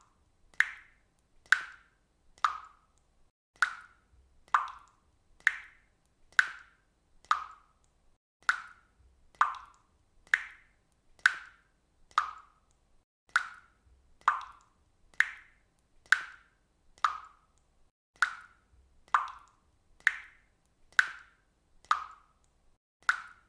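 Water dripping from a faucet: single drops falling at a steady pace of about one a second, each a short, clear plop.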